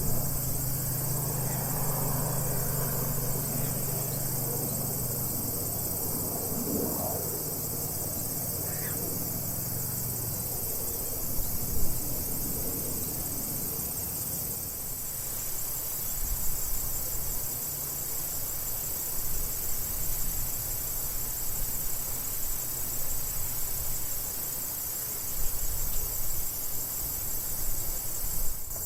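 A steady high-pitched insect chorus of crickets trilling in a prairie. A low hum fades out in the first ten seconds, and uneven low thumps and rustles come through in the second half.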